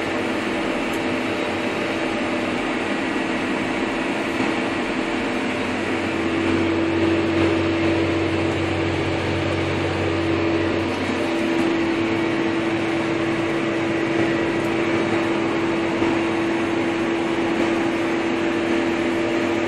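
Fendt 722 Vario tractor heard from inside its cab while working with a 6 m Amazone rotary harrow: a steady drone of its six-cylinder diesel under load, with a steady hum over an even whooshing noise. A deeper rumble swells for a few seconds about a third of the way in.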